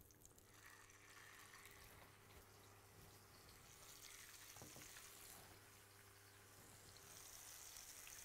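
Faint sizzling of salmon fillets laid salted side down into hot oil in a non-stick frying pan, the hiss growing louder about four seconds in and again near the end as more pieces go in.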